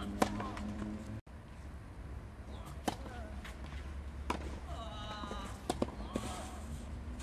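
Tennis ball struck with a racket on a serve, a single sharp hit. Then a rally on the clay court, with racket hits about a second and a half apart.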